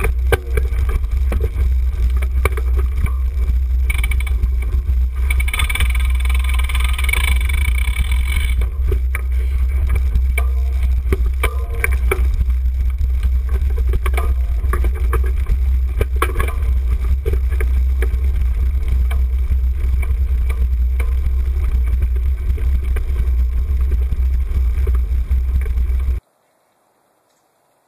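Constant low rumble with frequent rattles and knocks from a handlebar-mounted camera on a cyclocross bike ridden over a bumpy, leaf-covered grass and dirt course. About two seconds before the end the sound cuts off suddenly.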